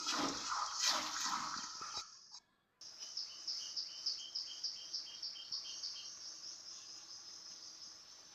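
Mango pieces frying in hot mustard oil, a steady sizzling hiss. After a brief break about two seconds in, a regular high chirping, about four chirps a second, runs over a fainter sizzle and fades out toward the end.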